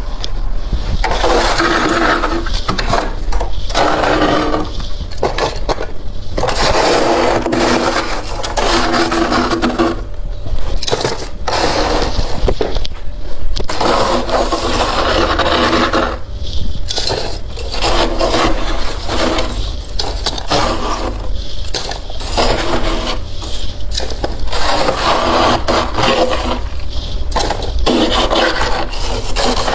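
Freezer frost crunching and scraping in close-up, a run of loud gritty bursts one after another with a squeaky edge.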